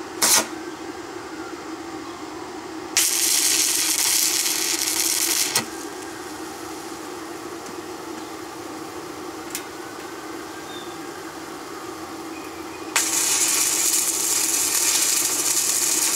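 Stick arc welding with a small inverter arc welder: the arc crackles and hisses for about two and a half seconds, stops, then strikes again about thirteen seconds in and keeps burning. A sharp click comes just after the start, and a steady low hum runs underneath.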